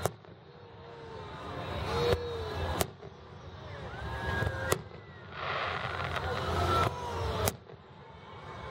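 Aerial fireworks shells bursting: sharp booms about two seconds in and again shortly after, another near the middle and one near the end. A steady noisy background hiss and rumble swells between the bursts.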